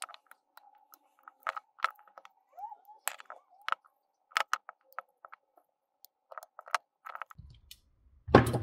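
Scattered clicks and creaks of steel locking pliers gripping and twisting the threaded head of a small titanium flashlight through a rubber-coated glove. Near the end there is a louder clunk as the pliers are set down on the silicone work mat.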